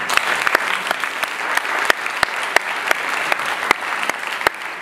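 Audience applauding, with a few close, sharp individual claps standing out from the general clapping.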